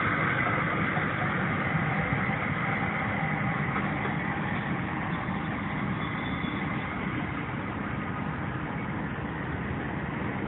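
Class 67 diesel-hauled passenger train pulling away. A steady engine and rail rumble slowly fades as it goes.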